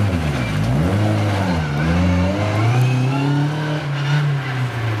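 Rally car's engine revving hard as it accelerates out of a hairpin. Its pitch dips and rises twice in the first couple of seconds, then climbs steadily as the car pulls away.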